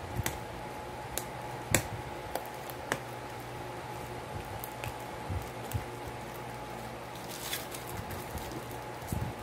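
Small clicks and taps as fingers fit the charging-board cover into a phone's frame and press it down, the loudest about two seconds in, with a short scrape a little before the end. A steady faint hum runs underneath.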